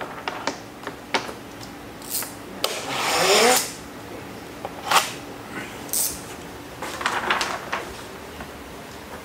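Ceramic window tint film being pulled off its roll and handled: rustling and crinkling of the plastic sheet with scattered clicks and knocks. The loudest stretch is about 3 seconds in, a longer rasp of film sliding with a short rising squeak.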